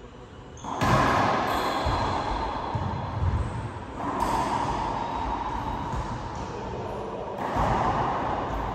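Racquetball rally in an enclosed court: hard ball strikes off racquets and walls, each leaving a long booming echo. The big hits come about a second in, at about four seconds and near the end.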